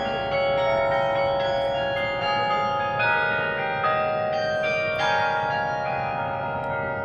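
The Berlin carillon's 68 bronze bells played by hand from the clavier, a melody of struck bell notes with chords, each note ringing on and overlapping the next.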